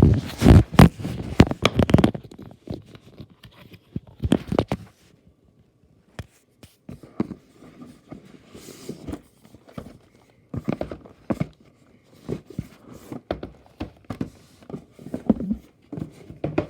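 Cardboard box and bagged LEGO pieces being handled and taken out: knocks, clatter and rustling of plastic bags, loudest in the first two seconds, then scattered clicks and rustles.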